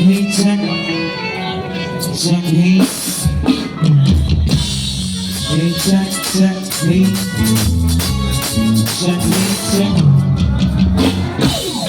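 A live band playing a song at a sound check, with steady percussion, and a deep bass part that comes in about three seconds in.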